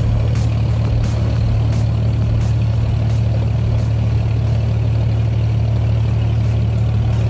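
Diesel engine of a motorised abra, a wooden water taxi, running steadily underway, a deep constant hum.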